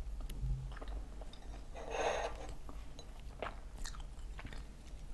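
A person biting off and chewing a piece of thin milk pancake (blin), heard close on a clip-on microphone: quiet chewing with small mouth clicks.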